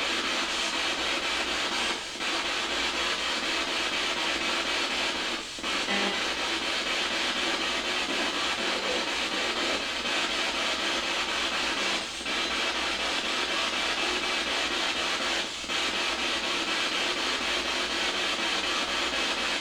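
Spirit box sweeping through radio stations, giving a steady hiss of static broken by a few brief drop-outs.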